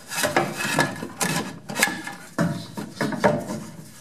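A wooden board knocking and scraping against a steel car frame as it is pushed and twisted into place for a test fit: about half a dozen uneven clunks with rubbing in between.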